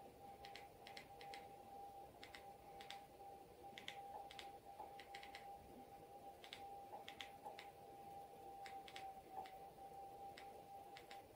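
Faint clicks of remote-control buttons pressed singly and in quick runs of two to four, stepping a projector's settings sliders and menu, over a faint steady hum.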